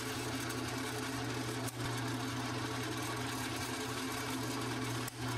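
Drill press running with a steady hum as its twist bit drills holes through a thin brass strip.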